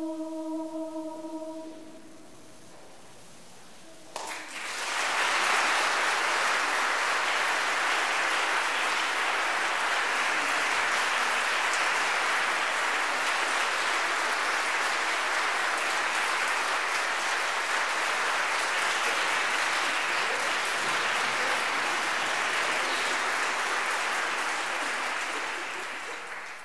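A mixed choir holds its final chord, which dies away in under two seconds. After a short hush, an audience breaks into steady applause that goes on and tapers off near the end.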